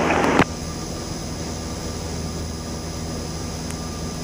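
Cessna 172M's four-cylinder Lycoming O-320 engine and propeller droning steadily in cruise, heard inside the cabin. It opens with a brief burst of radio hiss as an air traffic control transmission ends.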